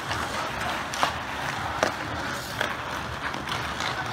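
Ice hockey skates scraping and cutting on the ice, with sharp clacks of hockey sticks on the puck about a second in and again just under two seconds in.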